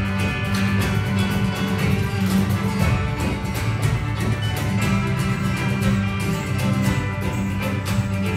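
Live folk ensemble playing a Celtic fiddle-tune medley: steady acoustic guitar strumming over sustained cello and keyboard, with violin.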